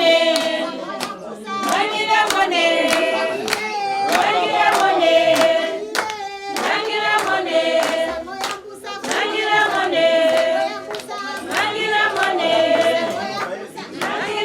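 A group of voices singing together with steady hand clapping in time, about two claps a second.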